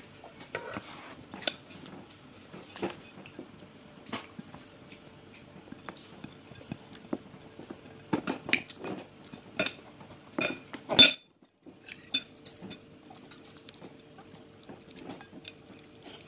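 A metal fork clinking and scraping on a plate while a child eats, in scattered taps, with a cluster of clinks about eight to eleven seconds in and the loudest one just after eleven seconds.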